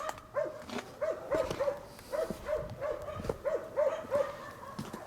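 A dog barking steadily in quick, short barks, about three a second.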